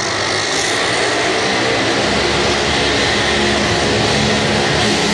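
Drag-racing car's engine at full throttle on a run down the strip, loud and steady throughout.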